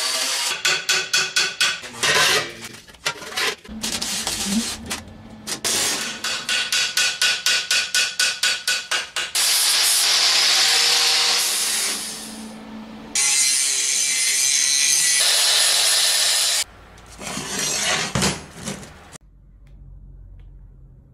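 Metalworking on steel armour plate: quick runs of ringing hammer blows, about five a second, and an angle grinder running steadily on the steel in two long passes. The sound stops near the end.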